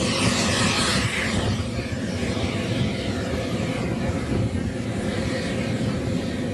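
Small Frank model jet turbine running steadily in an RC scale Lockheed U-2 as it taxis on grass: an even jet hiss, a little louder for the first second or so.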